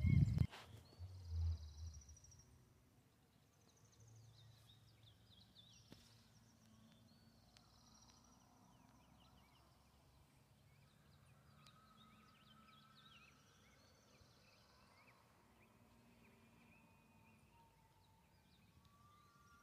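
Faint outdoor evening ambience with many short bird chirps and calls. A brief low rumble on the microphone comes in the first two seconds.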